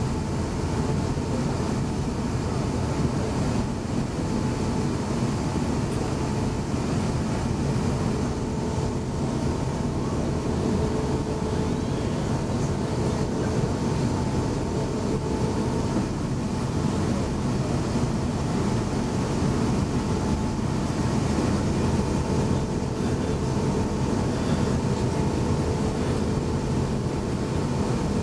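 Steady cabin noise of an Airbus A350-900 taxiing after landing: its Rolls-Royce Trent XWB engines at idle and the cabin air conditioning make a low, even rumble with a faint steady hum.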